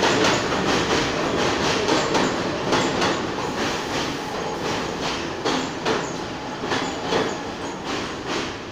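New York City subway train passing a station platform at speed: a steady rumble with rhythmic clicks of the wheels over rail joints, about two a second, slowly getting quieter.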